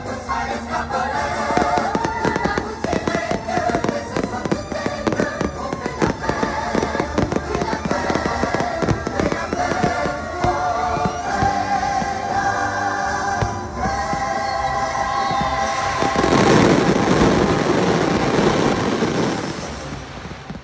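Fireworks bursting one after another over the show's music soundtrack. About three-quarters of the way through, the bursts merge into a loud, dense finale barrage, then die away near the end.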